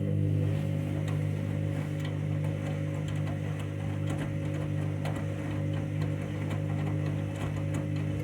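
Candy washing machine draining at the end of its main wash: the drain pump hums steadily at one pitch, with scattered light ticks and clicks.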